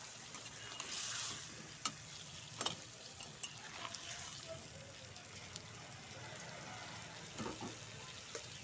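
Potato and brinjal pieces sizzling in a kadhai while a flat metal spatula stirs them, with a steady hiss that swells briefly about a second in and several sharp knocks of the spatula against the pan.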